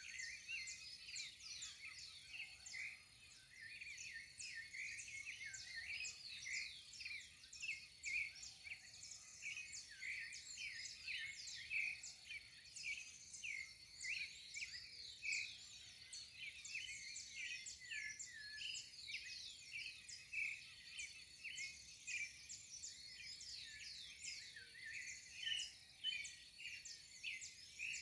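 Dawn chorus of many birds chirping and calling over one another in quick, overlapping high notes and short sweeps, with a thin steady high tone running underneath.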